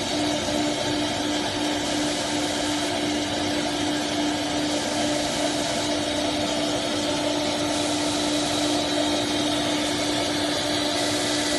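CNC router running: a steady pitched whine from the spindle, with a high hiss that comes and goes every second or two.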